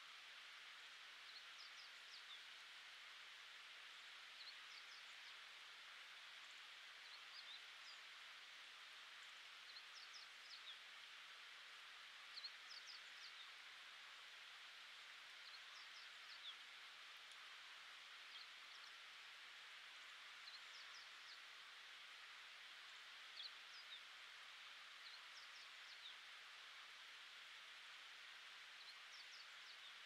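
Near silence: a faint, steady outdoor hiss with brief, high chirps of distant small birds scattered throughout, often two or three in quick succession.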